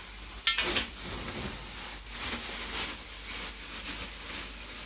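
Rustling and rubbing of plastic food packages being handled, coming and going in uneven swells.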